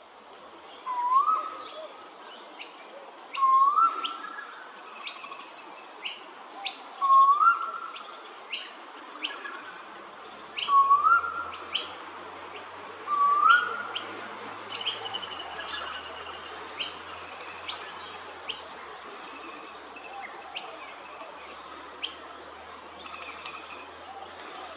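Male eastern koel calling: five loud rising two-part whistles, "koo-el", about three seconds apart, stopping after about fourteen seconds. Short sharp high chirps from other birds are scattered between and after the calls.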